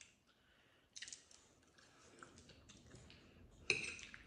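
Quiet eating sounds: chewing and light clicks of metal forks against plates, with one sharper click about three and a half seconds in.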